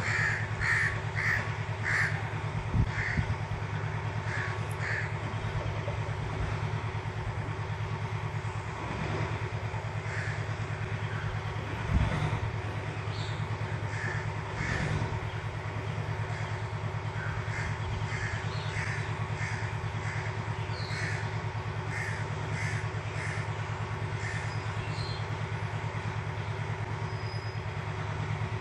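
Birds calling: short calls repeated in bouts, about two a second, over a steady low hum, with a single thump about twelve seconds in.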